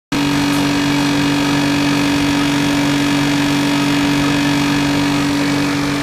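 Shrimp colour-sorting machine and its conveyor belt running: a loud, steady mechanical hum with a low drone and a second, higher steady tone over a broad whir.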